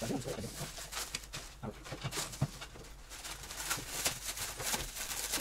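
Clear plastic wrapping crinkling and rustling in quick irregular crackles as it is pulled off packed hookah parts, with a light knock about two and a half seconds in.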